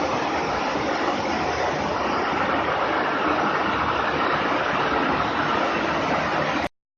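Swiwin RC model jet turbine running at a steady speed, an even, loud rushing whoosh that stops abruptly near the end.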